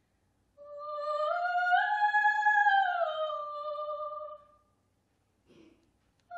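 Classical soprano voice singing one long high note that climbs in small steps, holds, and glides back down, starting about half a second in and fading out near four and a half seconds. A run of quick higher notes starts just at the end.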